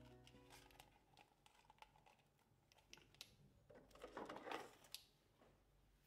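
Quiet, sparse clicks and taps of a clear plastic A5 ring-binder cover being handled and set down on a desk, with a short plastic rustle about four seconds in.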